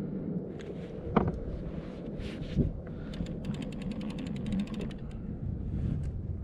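Low, steady rumble of wind and sea water around a fishing kayak, with a couple of sharp knocks on the hull or gear and, midway, a quick run of rapid ticks lasting about a second and a half.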